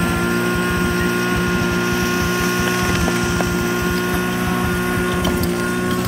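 Portable fire-pump engine running at a steady speed, with faint knocks of hose couplings near the end.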